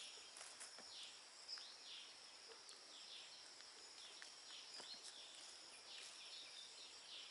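Faint outdoor ambience: short high chirps repeating about once or twice a second over a steady high hiss, with a few soft crackles from dry leaves being handled.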